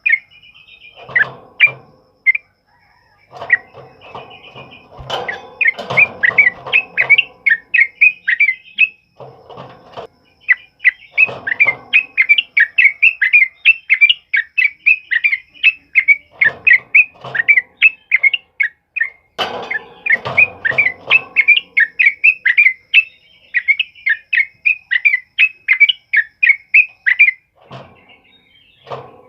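Yellow-vented bulbul singing its rolling 'ropel' song: long runs of quick, loud chirping notes, broken by short pauses, with lower, rougher chattering bursts mixed in.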